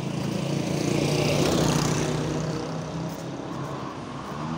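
A motorcycle and a motorcycle rickshaw driving past close by. Their small engines grow louder to a peak about a second and a half in, then fade as they move away.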